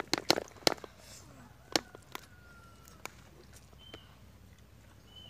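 A quick run of sharp clicks and taps, eating utensils knocking against ceramic plates, most of them in the first second, then a few single taps spread out.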